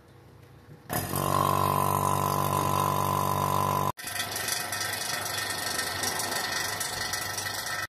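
Two-stage rotary vacuum pump starting about a second in and running steadily with a pitched hum, evacuating the refrigeration system of an ice cream machine. After a sudden break about four seconds in it runs on with a rougher, hissier sound.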